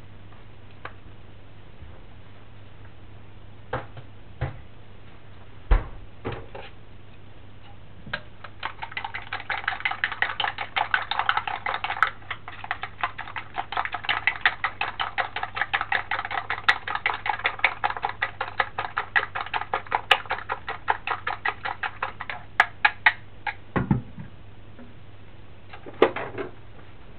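Chopsticks beating a raw egg, green onion and mayonnaise mixture in a stainless steel bowl: a fast, even clatter of strikes against the metal, several a second, starting about eight seconds in and stopping about fifteen seconds later. A few separate knocks come before it, and two more near the end as the bowl and chopsticks are set down.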